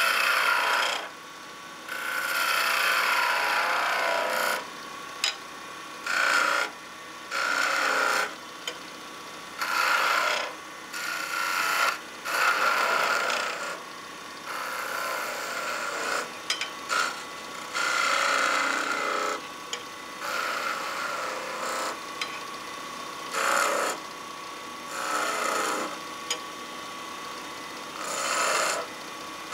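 Woodturning tool cutting a spinning pine blank on a lathe, in repeated passes of one to two seconds with short breaks between, over the steady run of the lathe.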